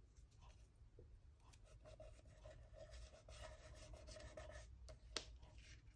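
Faint rustle and rubbing of washi tape pressed and smoothed down onto card-stock paper by fingers, with one sharp tap about five seconds in.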